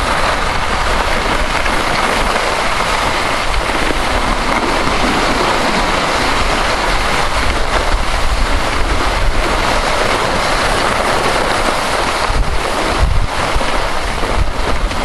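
Steady rushing noise of skiing downhill while filming: wind buffeting the camera microphone and skis sliding over hard-packed snow. It turns rougher and more uneven near the end.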